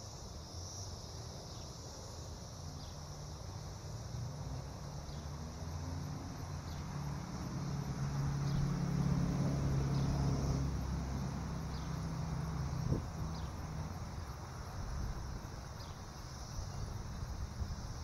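Steady insect chirring over the trickle of a small rock fountain's water spilling down its tiers. A low hum grows louder in the middle and then fades.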